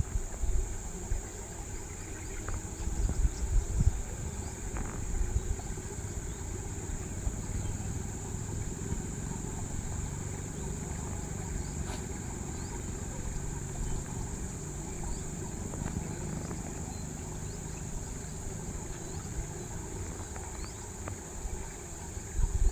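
Steady high-pitched insect chorus of cicadas or crickets, over a low rumble with a few bumps in the first few seconds.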